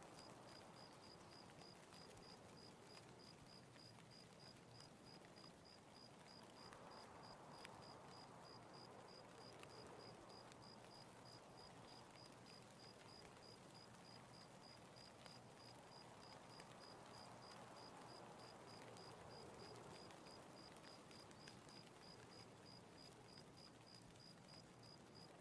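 Near silence: faint room hiss, with a faint high-pitched tone pulsing evenly a few times a second.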